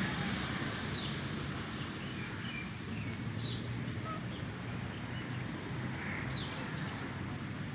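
Outdoor ambience: a steady background hum and hiss with short bird chirps scattered throughout.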